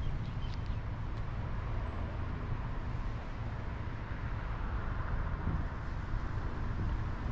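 Steady vehicle or road noise: a continuous low rumble with a hiss above it.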